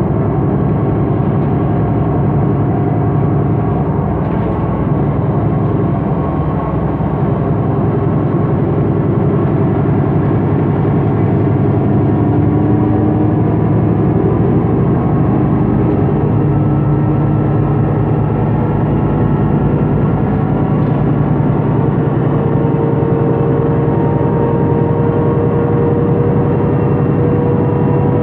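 MAN NG 273 T4 articulated city bus with an LPG engine running under way: a steady engine drone with whining tones that climb slowly in pitch about halfway through and again over the last few seconds.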